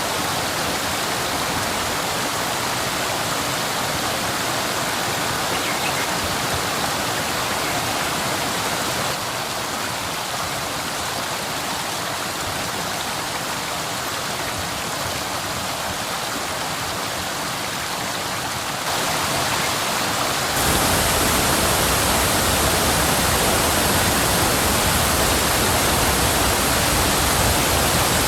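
Waterfall water rushing in a steady hiss. The sound changes abruptly twice, then about three-quarters of the way through it becomes louder and deeper.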